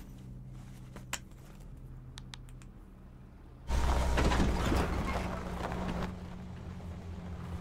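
Truck engine running and tyres moving over dirt, coming in suddenly a little over halfway through and loudest for about two seconds, then easing to a steady hum. Before it there is a low steady hum with a few faint clicks.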